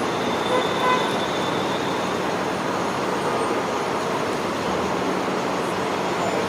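Steady vehicle noise: an even rumbling hiss with a faint high tone in the first couple of seconds.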